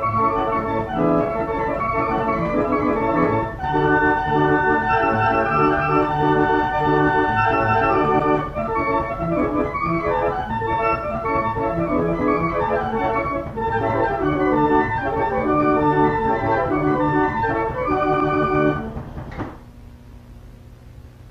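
Organ music playing a melody of held, changing notes, dropping to a much quieter level about two seconds before the end.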